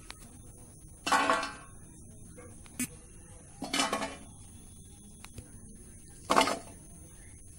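Handfuls of small green chillies dropped into a perforated stainless-steel bowl, clattering against the metal in three short bursts about two and a half seconds apart.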